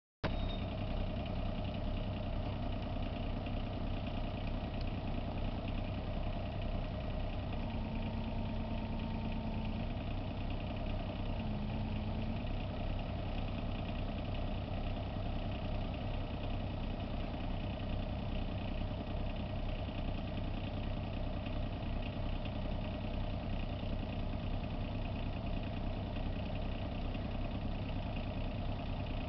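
Bobcat 322 compact excavator's diesel engine idling steadily, its sound unchanging throughout.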